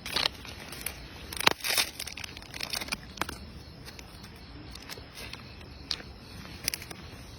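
Irregular crinkling and crackling with a few sharp clicks, loudest about a second and a half in.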